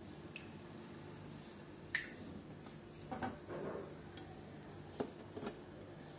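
Faint clicks and light knocks of kitchen utensils and containers being handled, the sharpest about two seconds in and again near five seconds, with a short clatter a little after three seconds, over a low steady hum.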